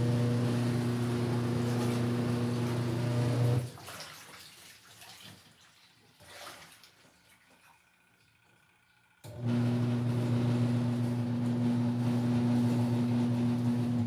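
The wash motor of a 6 kg Sharp twin-tub washing machine runs with a steady electric hum while agitating laundry in water. It stops a little under four seconds in, leaving only faint water movement, and starts again abruptly about nine seconds in. This stop-start is the normal pattern of a twin-tub wash timer.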